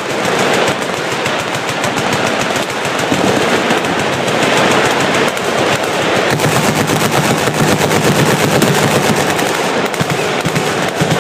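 Machine guns firing fully automatic, with rapid overlapping bursts running on without a break. The fire grows louder and heavier about six seconds in.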